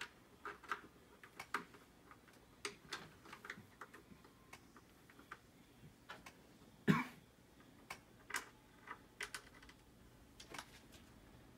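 Faint, irregular small clicks and taps of screws, T-nuts and a plastic football helmet with its metal face mask being handled while the face mask is refitted, with one louder short sound about seven seconds in.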